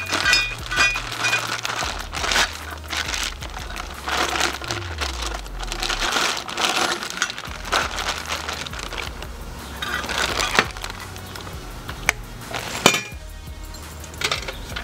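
Plastic bags and bubble wrap crinkling and rustling as stainless exhaust header pipes are unwrapped, over background music with a steady bass line. A few sharp clicks or clinks stand out in the second half as the pipes are handled.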